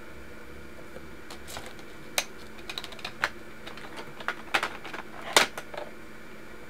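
Irregular light clicks and clacks of hard coloured pencils being handled off the page, a dozen or so, the loudest about five seconds in, over a steady faint room hum.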